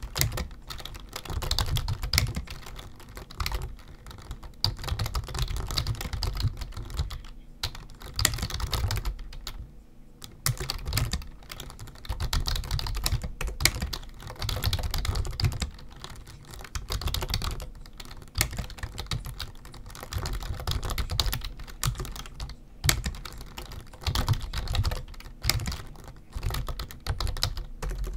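Typing on a computer keyboard: fast runs of key clicks, broken by short pauses, the longest about ten seconds in.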